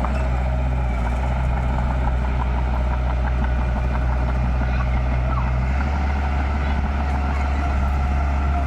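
Heavy diesel engine of earthmoving equipment running steadily; its low note drops about six seconds in.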